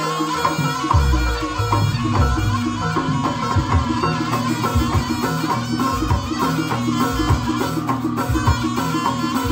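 Live Javanese jaranan accompaniment: kendang drums and gong-chime percussion keeping a steady rhythm under a sustained, reedy slompret (shawm) melody.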